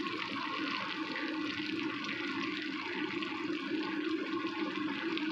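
Oil sizzling steadily in a wok as dried baby squid with red chillies, garlic and shallots fries, over a steady low hum.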